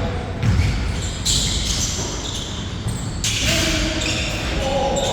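Basketball bouncing on a hard court during a game, in a large echoing hall.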